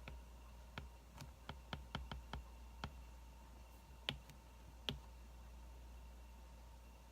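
Wood fire crackling faintly, with sharp irregular pops that come thick in the first few seconds, then a few more, then die away, over a steady low hum.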